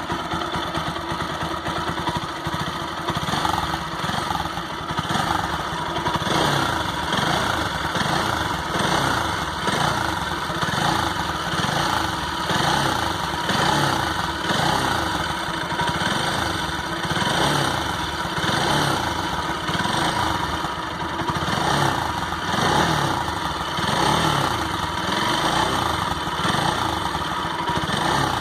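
Bajaj Pulsar 200 NS single-cylinder motorcycle engine running, swelling and falling slightly every couple of seconds. It carries an unusual noise that the owner likens to a snore.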